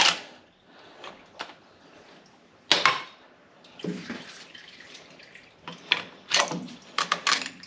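Scattered knocks and clinks of hand-tool work on a tractor's hydraulic parts, with liquid dripping in between. The loudest knock comes a little under 3 seconds in, and a quick run of sharper knocks comes near the end.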